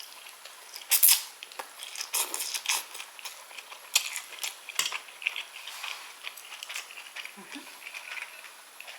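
Cutlery clinking and scraping against a plate in irregular strokes while eating, with sharper clinks about a second in and again around four seconds.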